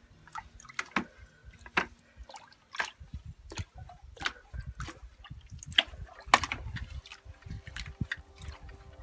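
A long handle stirring a bucket of stinging nettles steeped in water, a homemade nettle macerate fertilizer: irregular sloshing and splashing strokes, about one every half second to a second, the loudest about six seconds in.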